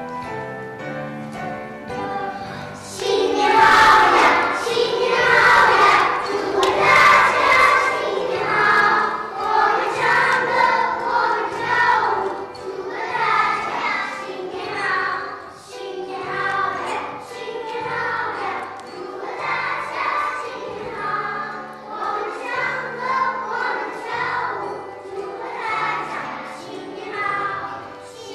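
A group of young children singing together with piano accompaniment. The piano plays alone at first and the children's voices come in about three seconds in, then continue phrase after phrase.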